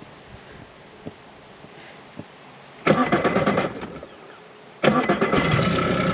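Yamaha outboard motor being started: it fires briefly for under a second about three seconds in and dies, then about two seconds later catches and keeps running steadily. Crickets chirp faintly before it starts.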